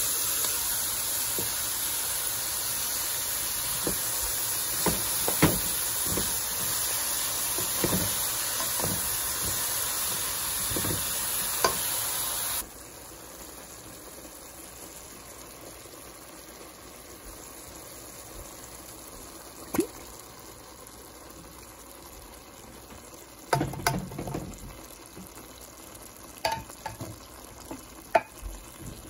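Cubed upo (bottle gourd) sizzling in a pot with sautéed ground pork and onions, stirred with a spatula that scrapes and knocks against the pot. Partway through, the sizzle drops suddenly to a much quieter hiss, with only occasional knocks after that.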